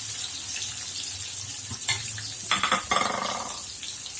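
Sliced onions sizzling in hot oil in a kadai, a steady hiss, with a sharp clink about two seconds in. A brief pitched sound follows near the three-second mark.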